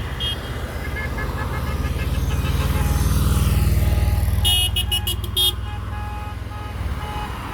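Rally vehicles driving past: one engine's rumble swells as it passes close and fades again, with a quick string of about five short horn beeps about halfway and fainter honking in the background.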